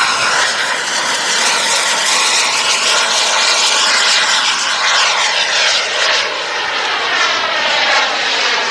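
The King Tech turbine of a Carf Models Viper Jet RC model jet, a loud whining jet rush as it makes a fast pass. In the second half the pitch slides steadily downward as the jet passes and draws away.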